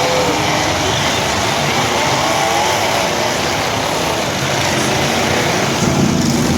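Several demolition derby trucks' engines running and revving together in a loud, continuous din.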